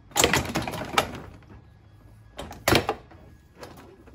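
Plastic front grille of a Jeep Wrangler JK being yanked free, its bottom push-in clips popping out with sharp snaps and a plastic rattle. One burst of clicks and rattling in the first second, a second cluster of snaps about two and a half seconds in.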